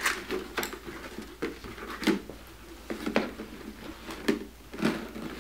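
Large sheet-plastic costume pieces being handled and turned over: the plastic flexing and rustling, with a string of irregular light knocks.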